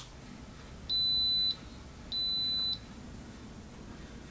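Instant Pot IP-DUO60 electric pressure cooker beeping twice from its control panel. Each beep is a steady, high electronic tone a little over half a second long, with about half a second between them.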